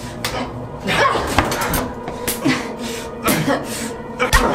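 Several short wordless sounds from a person's voice.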